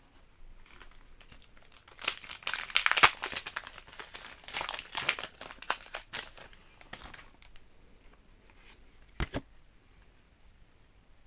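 Foil Pokémon booster pack wrapper crinkling and being torn open, in two bursts of crackling, followed by two quick sharp taps near the end.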